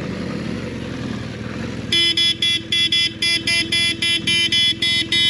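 Motorcycle running, then about two seconds in a vehicle horn sounds in a rapid string of short, loud beeps, about three a second.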